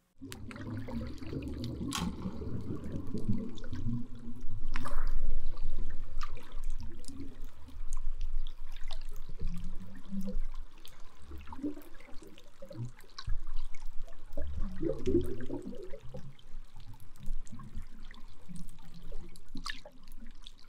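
Underwater soundscape of a coral reef: a low, rushing surge of water that swells loudest about five seconds in and again around fifteen seconds, with scattered sharp clicks throughout.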